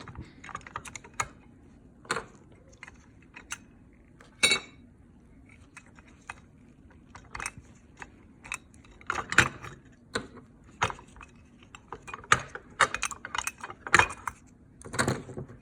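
Scattered light clicks and clinks of small metal parts being handled on a disassembled Honeywell gas control valve, sparse at first and busier from about nine seconds in.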